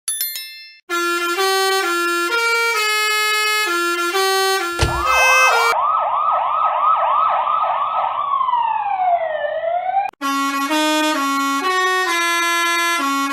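Electronic police siren sound effect in a meme sound-variation mix: a stepping tune of horn-like tones, then about a third of the way in a fast rising-and-falling siren yelp, about three cycles a second, which slides down and back up before the tune returns.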